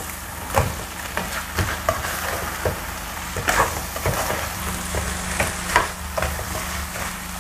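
Fried fish in chili sambal sizzling in a nonstick wok while a spatula stirs and scrapes through it, making irregular scrapes and soft knocks over a steady hiss.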